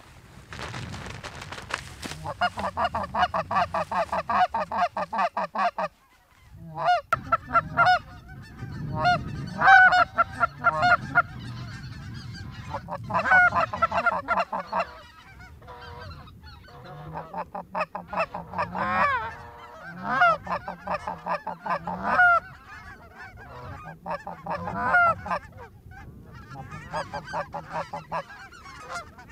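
Canada goose calling: rapid runs of honks and clucks, loud and close, with a short break about six seconds in.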